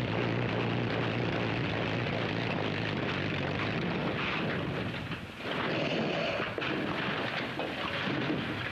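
The Sky Car helicopter's engine running steadily, driving its chain-driven reciprocating flat-disc propeller with a low hum; the hum drops away about five seconds in, leaving a rough noisy background.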